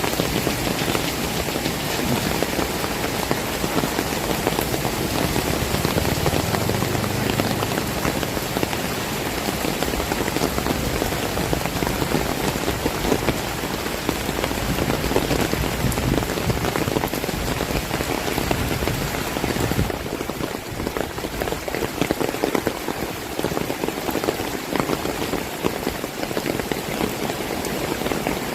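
Heavy rain falling steadily: a dense, even hiss of countless drops striking surfaces, easing slightly about twenty seconds in.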